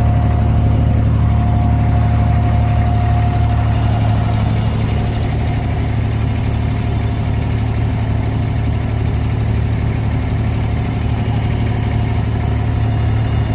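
Engine of a wooden abra water taxi running steadily, a deep drone underway on the creek. A thin steady whine sits over it and fades after about four seconds.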